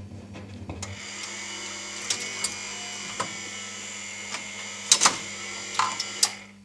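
Wurlitzer Atlanta jukebox's record-changing mechanism running as the 45 rpm single is lifted off the turntable and returned to the magazine. About a second in, a low hum gives way to a steady motor whine with scattered clicks, then two loud clacks close together about five seconds in and a few more clicks before it fades.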